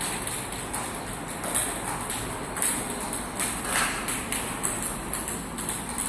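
Table tennis balls bouncing on a concrete floor, a scattered run of light clicks, over a steady high hiss.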